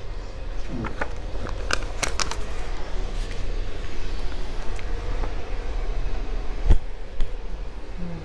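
Steady low room hum with scattered clicks and rustling handling noise, and a single thump about two-thirds through.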